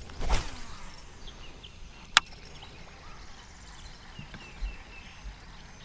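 A baitcasting rod and reel being cast: a whooshing whir that falls in pitch near the start, then one sharp click about two seconds in as the reel is engaged. Birds chirp faintly throughout.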